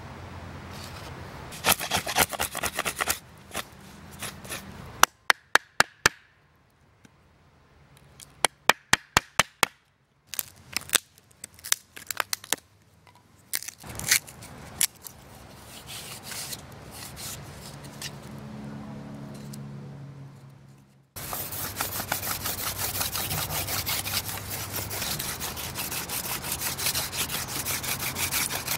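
Stone scraper rasping along a thin wooden stalk in fast, repeated strokes, shaping a hand-drill spindle. This follows runs of sharp clicks and cracks from the wood being worked by hand.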